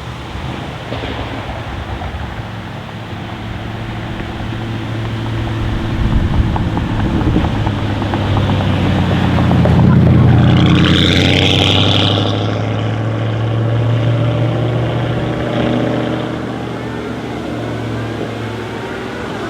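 Audi RS6 C8's twin-turbo V8, with its particulate filter (OPF) removed, running at steady low revs as the car approaches, passes close by about ten seconds in, and draws away.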